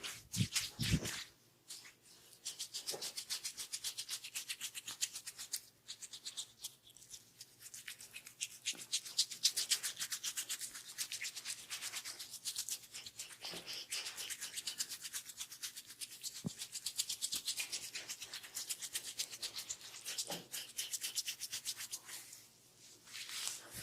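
Hands rubbing an oiled scalp and hair in fast, rhythmic massage strokes, with a couple of brief pauses.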